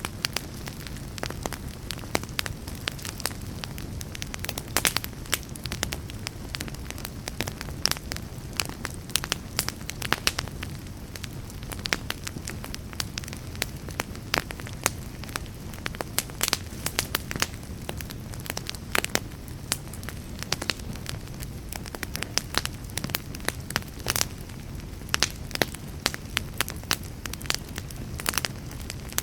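Wood fire burning in a fireplace: a steady low rumble of flames with frequent, irregular crackles and pops.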